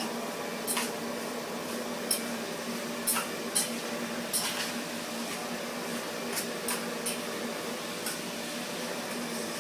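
Scattered light scrapes and clicks of a utensil working a waxed-sawdust mixture in metal containers, over a steady low hum.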